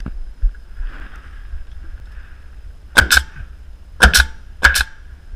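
Nail gun firing three times, about a second and then half a second apart, each a sharp double crack, driving nails through boards into the wooden eave framing.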